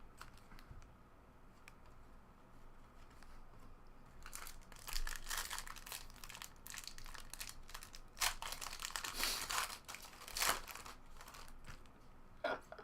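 Foil trading-card pack wrapper crinkling and tearing as cards are handled, in three short rustling bursts.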